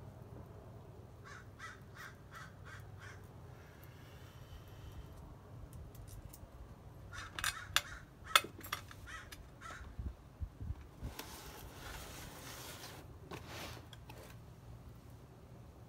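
Small steel brake hardware clicking and clinking against a two-piece AP Racing brake rotor as its ring and bell are handled and turned, with two sharp clinks near the middle as the loudest sounds. Crows caw in the background.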